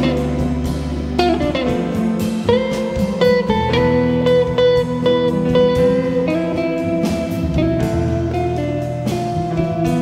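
Jazz guitar instrumental music: guitar playing long held notes, with a falling slide about a second in, over a sustained bass line and regular percussive strokes.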